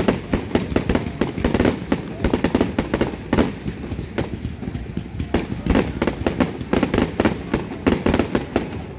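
Fireworks display, aerial shells bursting in quick succession with sharp bangs several times a second and crackling between them.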